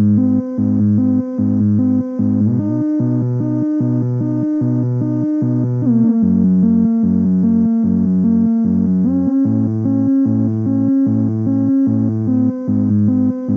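Korg Volca Bass analog synthesizer playing a slow repeating bass sequence with delay and reverb, heard through a small 10-watt practice amp. The notes pulse evenly with short gaps between them, and the pitch slides to a new note about two and a half, six and nine seconds in.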